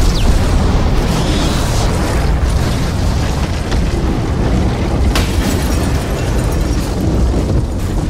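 Explosion sound effect: a sudden loud boom that carries on as a long, low rumbling blast with crackles, and a sharp crack about five seconds in.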